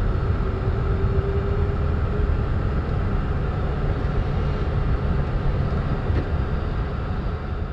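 Airbus A310 rolling down the runway after landing, heard inside the cockpit: a steady low rumble of engines and wheels. A faint steady tone fades out about two seconds in.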